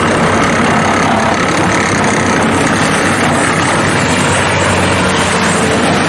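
Diesel engine of a 2009 Bobcat T190 skid steer running steadily at an even speed.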